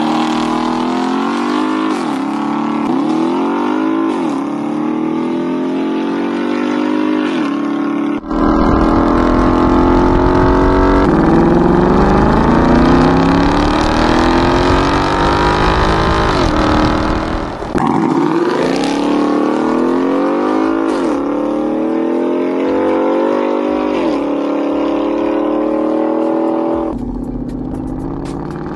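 Ford Mustang GT's 5.0-litre V8 through an aftermarket cat-back exhaust, blipped several times in quick rises and falls. Then comes a long pull that climbs in pitch with a deep rumble underneath, followed by more quick revs and a steadier run.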